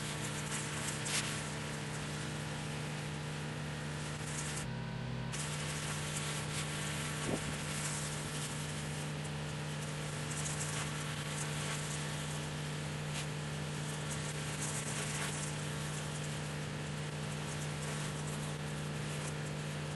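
Pressure washer running steadily, its engine or pump holding one low constant tone under the hiss of the high-pressure water spray, with a brief break in the spray about five seconds in.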